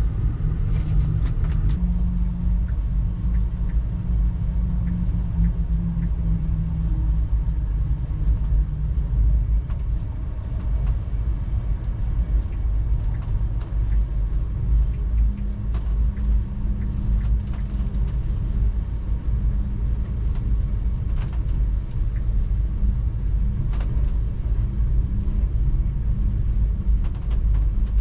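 VIA Rail's The Canadian passenger train running on the track: a steady low rumble with a low hum and scattered light clicks and rattles.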